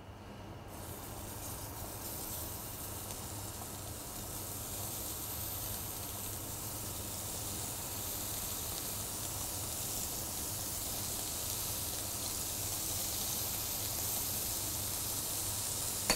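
Pieces of beef tenderloin sizzling in hot oil in a frying pan as they are seared, a steady sizzle that grows gradually louder as more pieces go in.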